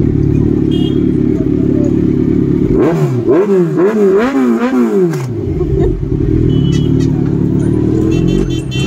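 Kawasaki Ninja sport motorcycle idling steadily, then revved about three seconds in with a quick series of four throttle blips, the engine pitch climbing and falling each time, before settling back to idle.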